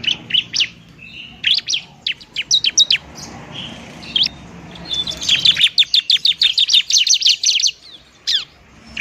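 Bar-winged prinia (ciblek) singing in its 'tarung' (fighting) style: strings of sharp, high chirps, thinning out briefly before a fast, dense run of notes, then a few scattered calls near the end.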